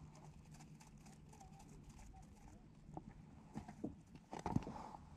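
Faint scattered taps and knocks on ice, several close together in the second half.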